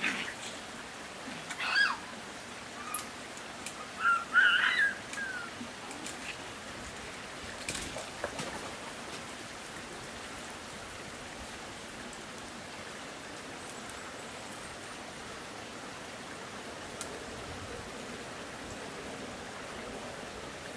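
Raccoon on a catch pole giving a few short, high squealing calls, one about two seconds in and a cluster around four to five seconds. Rustling footsteps in dry brush follow around eight seconds, over a steady background hiss.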